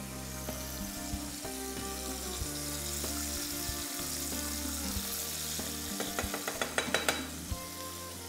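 Chicken wings deep-frying in hot oil, a steady sizzle, over soft background music. A quick run of light clicks comes about six to seven seconds in.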